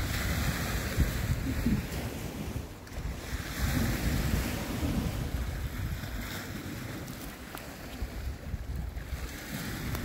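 Wind buffeting the microphone in uneven gusts, over small waves washing on a stony shore; the gusts are stronger in the first half.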